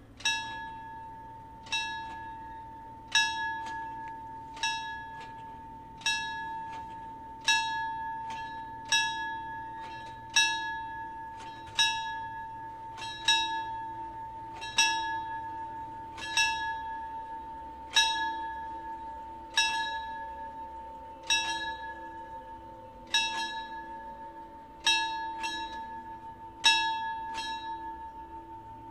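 Italian railway level-crossing warning bell, an FS64-type bell box, striking steadily about once every second and a half while the barriers lower. Each stroke rings on and fades under a continuous ringing tone.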